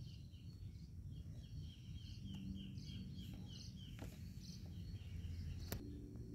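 Outdoor ambience: a rapid run of short high chirps, about five a second, over a low rumble, with two sharp clicks about four and nearly six seconds in.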